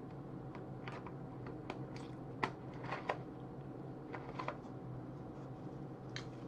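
Steady low electrical hum with faint, irregular clicks and ticks, two sharper ones about halfway through.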